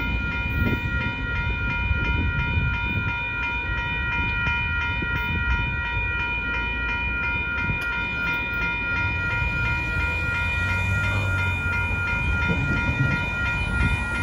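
Grade-crossing warning bell ringing in a fast, even, repeating ding over the low rumble of a Union Pacific tank car train rolling through the crossing. A road vehicle's engine rises for a moment a little past the middle.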